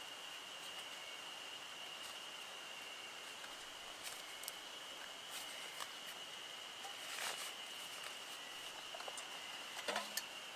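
A steady high-pitched insect drone runs throughout, while a backpack's gear is handled with scattered light clicks and rustles. A sharper clatter of clicks comes near the end.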